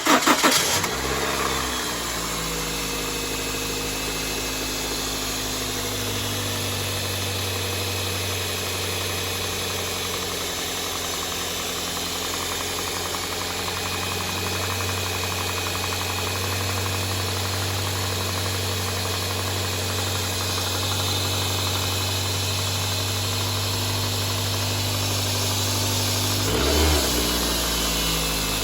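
2006 Toyota Corolla SEG engine on its first start of the day, running high just after catching and settling to a steady idle within a couple of seconds, with a brief rise in revs near the end. The owner hears a noise on this first start that he cannot identify.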